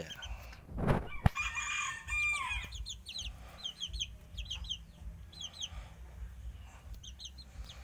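Month-old Saigon–Pama crossbred fighting-chicken chicks peeping: short high chirps, often in pairs, repeated throughout. About a second in there is a thump, followed by a louder, longer fowl call.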